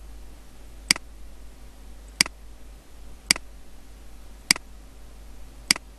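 Computer mouse button clicking five times, about one click every second, placing pen-tool anchor points.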